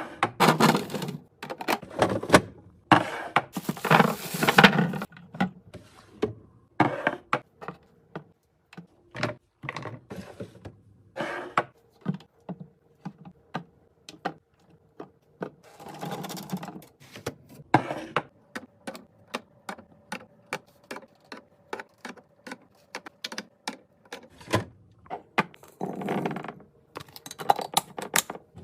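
Food containers and packaging handled while a fridge is being stocked: a run of sharp clicks, taps and knocks as items and lids are set down, with stretches of rustling. A faint steady hum runs under much of it.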